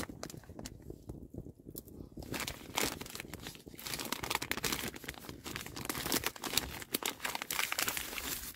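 A paper food pouch being torn open and handled, with crinkling and tearing that grow busier from about three seconds in.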